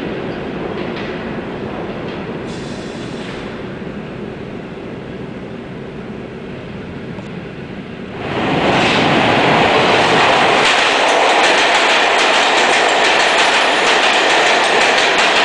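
NYC subway train, a G train of R46 cars, approaching through the tunnel with a steady rumble that slowly fades. About eight seconds in the sound jumps much louder as a train runs along the platform at speed, its wheels clattering over the rail joints.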